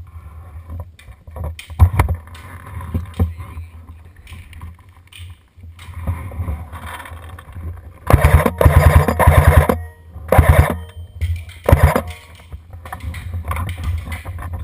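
Airsoft guns firing in bursts: a rapid rattle of shots lasting about a second and a half, then two shorter bursts, over a steady low rumble. A few single clicks come earlier.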